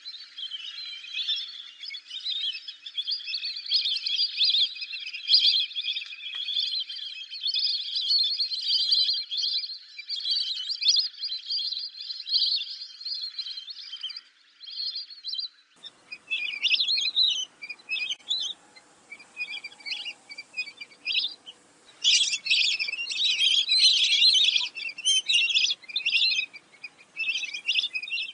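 Lesser whistling ducks calling: a flock's high, repeated whistles in a near-continuous chatter. About fifteen seconds in, the background changes and the whistles come in separate bursts with short gaps between.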